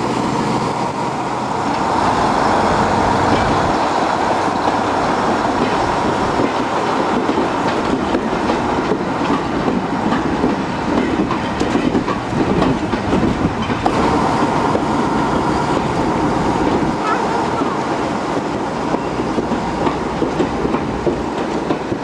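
Diesel shunter's engine running as it hauls a rake of goods wagons past, with the wagons' wheels clicking over the rail joints as they roll by.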